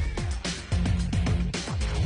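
Background music with a steady beat and deep bass drum hits.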